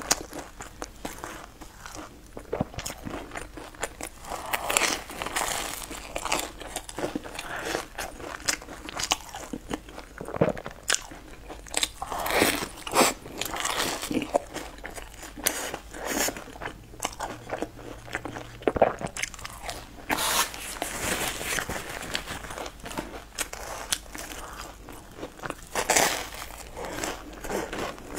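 Close-up eating sounds of a braided bread loaf dipped in milk: irregular crunchy bites and wet chewing, picked up by a clip-on microphone.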